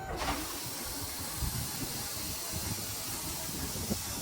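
A steady hiss with a low rumble underneath, cutting in suddenly.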